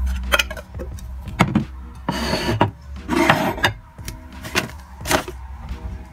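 Crockery and packaging being handled on a kitchen countertop: a few light knocks and clicks, with two short scraping, rustling bursts about two and three seconds in.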